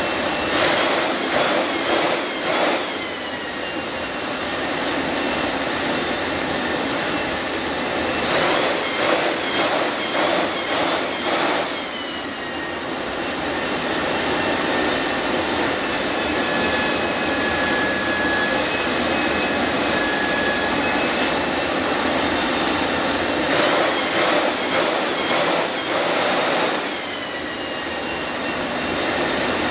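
Homemade turbojet engine of a jet-powered Mini running with a steady high-pitched whine. Three times the whine surges up and down in quick pulses, four or five in a row, and then settles back. The afterburner is not lighting.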